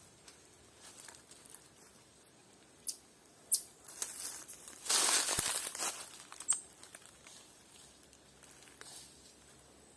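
Rustling in dry leaves or brush, with one loud burst about five to six seconds in, among scattered light clicks and several short high-pitched chirps.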